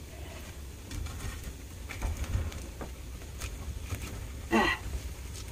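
Burning logs in a wood stove being pushed around with a metal poker: scattered knocks and clicks over a low rumble from the fire. One short, loud, pitched sound about four and a half seconds in.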